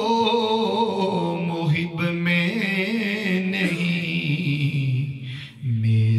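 A man chanting devotional Urdu verse in a slow melody with long held notes; the voice fades briefly near the end and comes back on a lower note.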